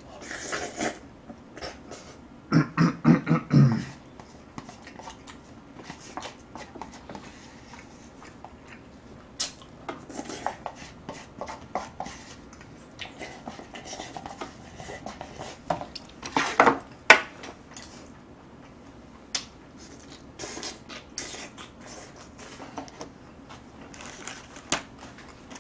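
Close-up eating sounds: chewing and slurping Jjapaghetti instant jjajang noodles from a paper cup, with wooden chopsticks clicking and scraping against the cup. Irregular small clicks and scrapes, with a few louder bursts about three seconds in and again past the halfway mark.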